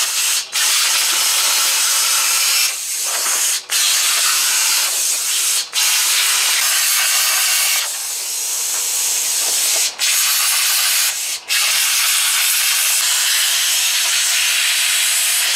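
Plasma cutter hissing as it cuts through the rusted sheet-steel floor of a car body. The hiss stops for a moment about five times and starts again.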